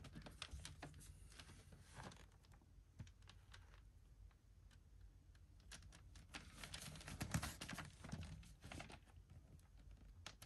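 Faint handling noise of a DVD box set being unboxed: clusters of light clicks and rustles, busiest in the first two seconds and again from about six to nine seconds in.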